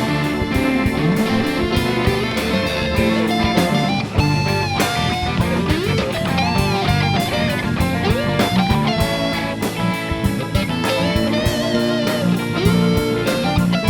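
Live rock band playing an instrumental passage with no singing: an electric guitar line that bends and wavers in pitch, over bass, organ and drums.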